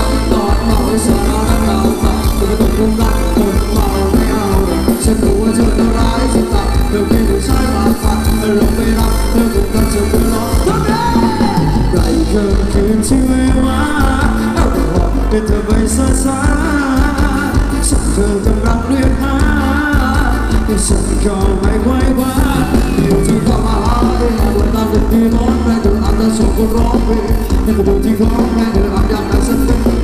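Loud Thai ramwong dance song played by a live band over a PA, with a singer's voice over the band.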